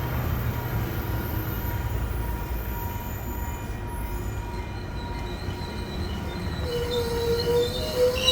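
Metrolink commuter train rolling in with a steady low rumble; a high squeal from the wheels sets in about seven seconds in and grows louder as the train slows for its station stop.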